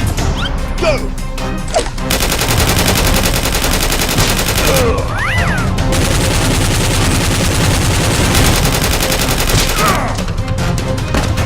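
Rapid automatic-gunfire sound effects over action background music, densest from about two seconds in to near the end.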